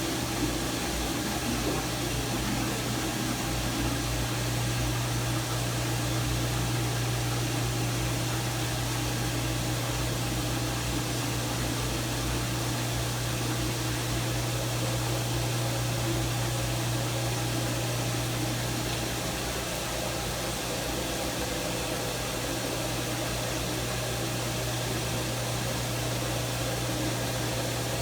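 Steady running noise of a mechanical assisted-bathing tub: an even hiss with a constant low hum, unchanging throughout.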